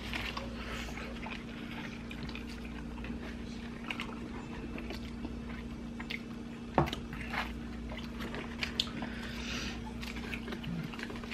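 Soft, scattered chewing and wet mouth sounds of people eating fried chicken and pizza, with one sharper click about seven seconds in, over a steady low hum.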